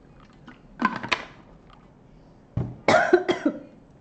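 A woman coughing after a drink of water: a short cough about a second in, then two louder coughs close together near the end.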